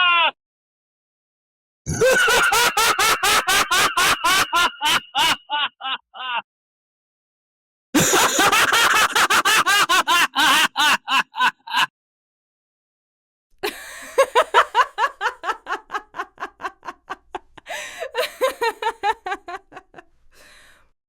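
Three separate recordings of a person laughing, one after another with silent gaps between them: each is a fast run of 'ha-ha' pulses that tails off, the last one longer and fading out slowly.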